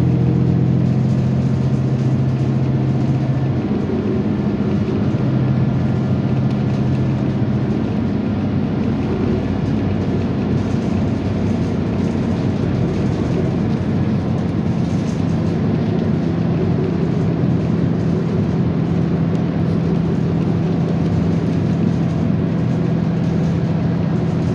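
Steady rumble of a moving Metro transit vehicle heard from inside the passenger cabin, with a low hum running under it.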